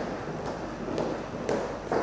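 Footsteps on a concrete floor, about two steps a second, over a steady background hiss.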